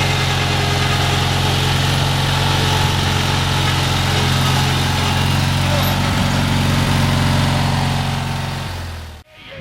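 Briggs & Stratton 16 HP 656cc opposed-twin engine running steadily at a constant speed after a tune-up with new head gaskets, spark plugs and air filter, then fading out near the end.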